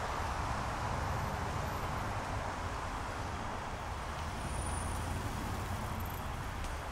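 Steady city road traffic: a continuous low rumble and wash of noise with no single event standing out.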